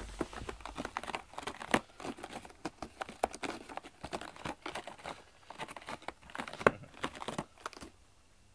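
A cat rustling and scratching about inside a cardboard box: an irregular run of scrapes and crinkles against the cardboard that stops about a second before the end.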